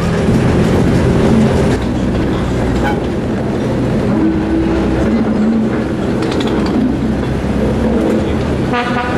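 Diesel train running slowly along the line, its engine giving a steady low hum, heard from a carriage window.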